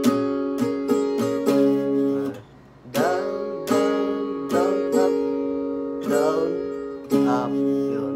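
Acoustic guitar with a capo at the sixth fret, strummed in a steady pattern through the song's intro chords (C9, G, Em, D), with a brief gap about two and a half seconds in at a chord change.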